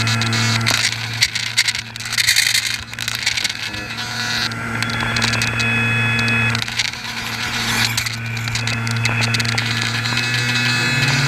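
HobbyKing Swamp Dawg RC air boat's motor and air propeller running steadily under way, a constant hum with a thin higher whine over it, stepping up in pitch at the very end.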